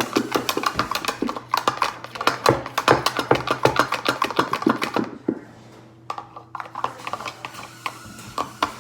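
A utensil stirring water slime in a container, clicking and scraping rapidly against its sides. The stirring stops briefly about five seconds in, then goes on more softly.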